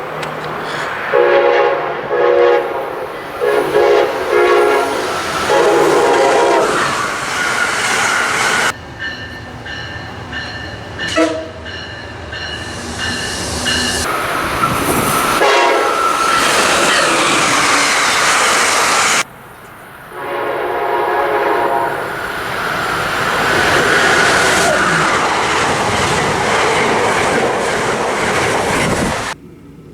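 Locomotive air horns sounding multi-note chords in a series of short and long blasts, over the rumble and wheel clatter of passing trains. The sound changes abruptly several times as one recording gives way to the next.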